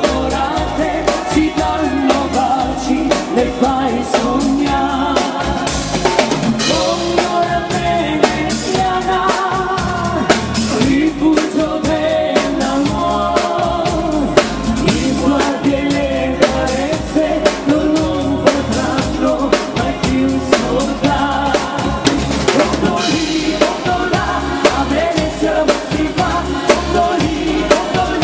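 Live band music: singing over a drum kit beat.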